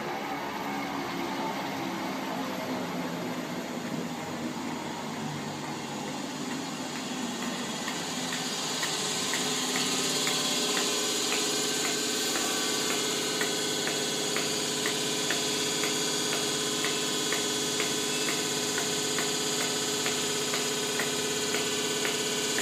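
Class 318 electric multiple unit rolling slowly into the platform and coming to a stop. Once it stands, a steady hum from the train's equipment takes over, louder from about nine seconds in, with a faint regular ticking about twice a second.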